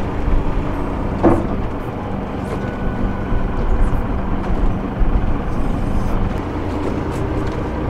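Fishing boat's engine running steadily with a low hum, over a constant rumble of wind and water.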